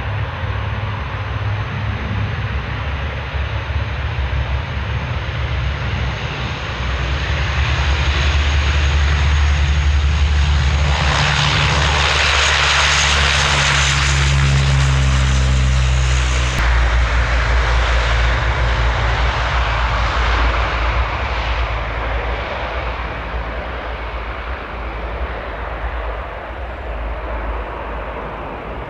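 Breguet Atlantique 2's twin Rolls-Royce Tyne turboprops at takeoff power during the takeoff roll. The sound grows louder as the aircraft approaches. The propeller tones drop suddenly in pitch as it passes, a bit over halfway through, then fade as it climbs away.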